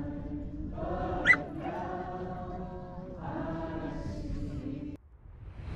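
A crowd singing a worship song together in held, slow phrases. A brief sharp high sound cuts through about a second in, and the singing stops abruptly near the end, with a rising whoosh after it.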